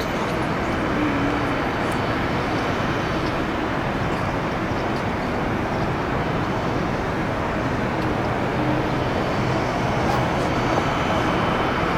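Jet airliner engines heard from the ground: a steady, even rushing noise that holds at the same level throughout.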